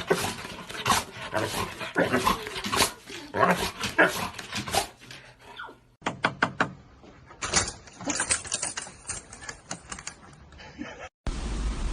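A dog vocalising in short, irregular sounds, with abrupt changes about six seconds in and again near the end as the clips switch.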